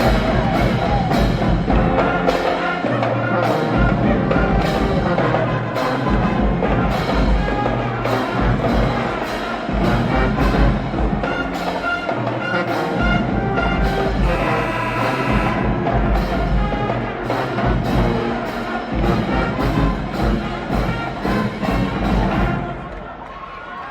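Loud music with a steady, heavy drum beat, stopping shortly before the end.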